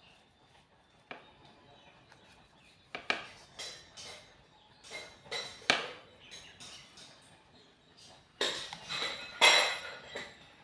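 Metal kitchen utensil clinking and scraping on a plate while rolled ragi biscuit dough is cut into pieces. A run of single sharp clinks through the middle, then a louder cluster of scraping and clatter about eight to ten seconds in.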